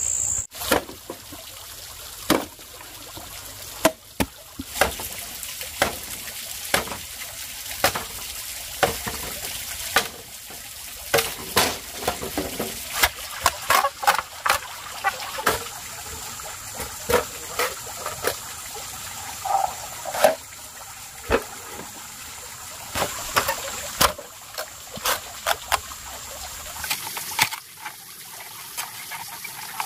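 Water trickling and splashing from a pipe, with many irregular sharp knocks and cracks of a machete chopping and splitting green bamboo.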